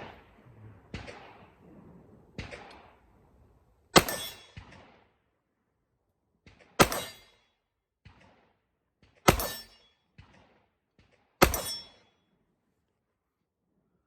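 Four gunshots roughly two and a half seconds apart, each with a short ringing tail, with fainter knocks and clicks between them.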